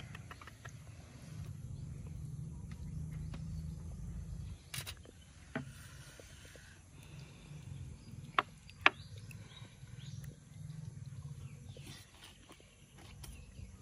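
Close-up eating sounds: low rumbling chewing noises that come and go, with a few sharp clicks and smacks. The two loudest clicks come in quick succession a little past the middle.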